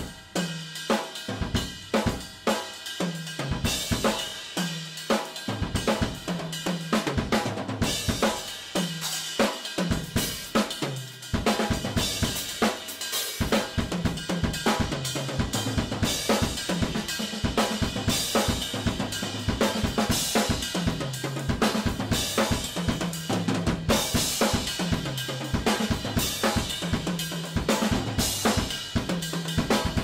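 Solo drum kit played fast with Saluda cymbals: rapid snare and bass drum strokes under a wash of cymbals and hi-hat, with repeated tom runs stepping down in pitch.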